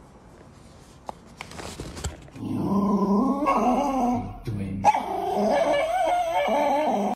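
A small dog vocalizing in two long, wavering whine-like stretches, starting about two and a half seconds in. A short break and a sharp click come near the middle.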